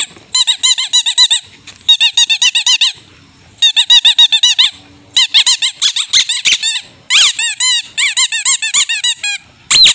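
A dog's squeaky toy squeaking in rapid runs, about ten squeaks a second, in five bursts of a second or so with short pauses between.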